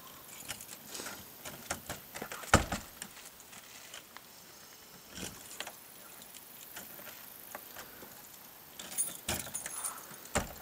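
A bunch of keys jangling and clicking against a front-door lock as the key is fumbled into it, in scattered bursts, with a single loud thump about two and a half seconds in.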